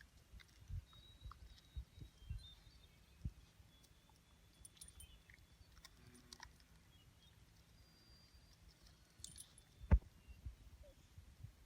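Quiet outdoor stillness with scattered soft low thumps, one louder thump about ten seconds in, and faint thin high whistles in the background.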